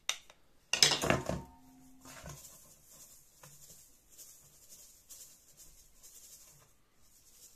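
A stainless steel sieve and mixing bowl knock together once about a second in, leaving a short metallic ring, with a smaller knock just after. Faint rustling follows as the sieve of home-ground wholemeal flour is shaken and the flour sifts through.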